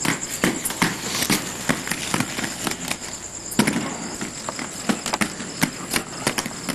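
Crickets chirring in a steady high trill, under many irregular sharp clicks and knocks.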